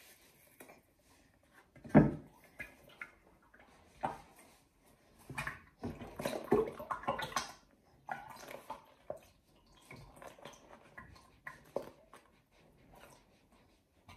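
Thick UHT cream pouring from a torn-open carton into a glass bowl, with the carton crinkling in the hands. There is a sharp knock about two seconds in.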